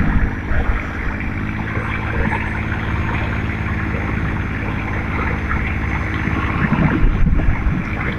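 Longtail boat's engine running steadily under way, with wind and water noise over it, a little louder near the end.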